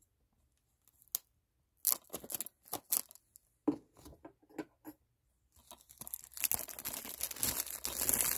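Packaging on a DVD case being handled and torn. At first there are scattered clicks and crinkles; from about five and a half seconds in there is continuous crinkling and tearing.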